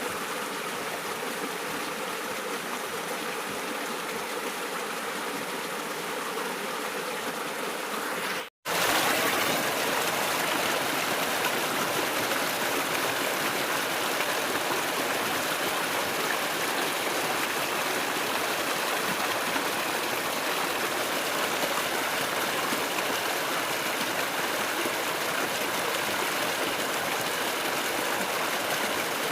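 Running water of a stream or river, a steady rush. It drops out for an instant about eight seconds in and comes back louder.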